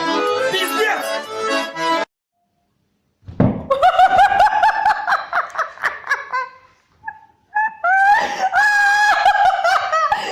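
Accordion music that stops abruptly about two seconds in; after a second of silence, high-pitched shrieking laughter in long pulsing cries, broken by short pauses.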